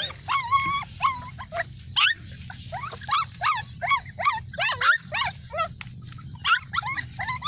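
Bulldogs whimpering and whining: a quick series of short, high-pitched cries that rise and fall in pitch, two or three a second, with a brief lull about six seconds in.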